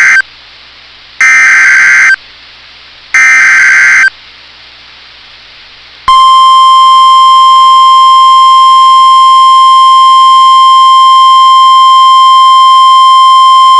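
NOAA Weather Radio Emergency Alert System signal. The tail of one SAME header burst is followed by two more screechy digital data bursts of about a second each. About six seconds in, the steady 1050 Hz warning alarm tone begins and holds, announcing that a severe thunderstorm warning is being issued.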